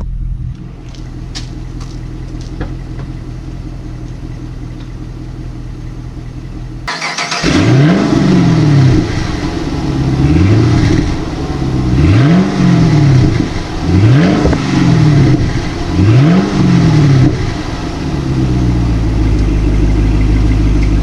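2010 Chevrolet Camaro SS 6.2-litre V8 on its old muffler, idling, then revved about five times in quick blips with the pitch rising and falling each time, settling back to idle near the end.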